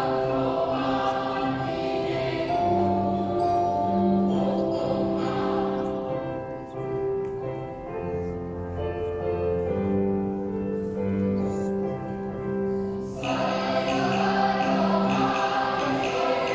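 Children's and youth choir singing in several parts, with long held notes. The singing grows fuller and brighter about thirteen seconds in.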